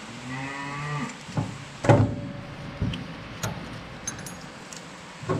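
Metal knocks and clanks from a hand tool working a finger wheel along the steel shaft of a New Idea 323 corn picker's husking bed: several separate sharp knocks, the loudest about two seconds in, after a short pitched sound in the first second.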